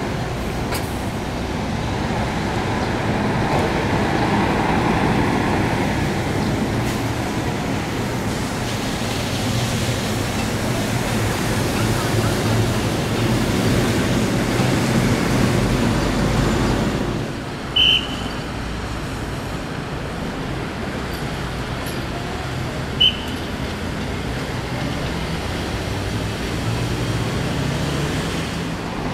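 Vehicle engines and road traffic: a tour coach's diesel engine running as it moves off, then steady traffic noise, with two short high chirps in the second half.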